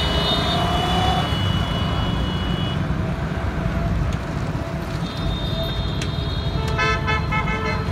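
Roadside motor traffic with motorcycles passing and a steady road rumble. A held vehicle horn stops about three seconds in, and a burst of short repeated horn honks comes near the end.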